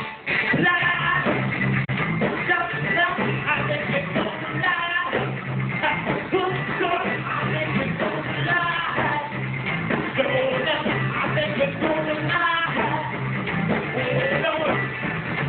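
Live rock band playing an instrumental passage: electric guitar over a steady bass line and drums.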